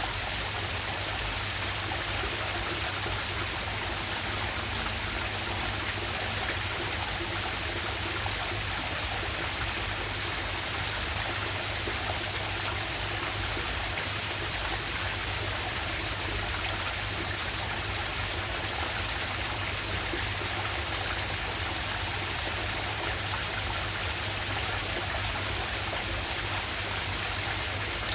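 Waterfall and stream water rushing, a steady unbroken wash of sound.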